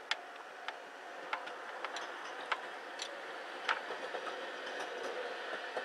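Electric commuter train rolling past with a steady rolling noise that builds slowly. Sharp clicks come about every half second as the wheels pass over rail joints.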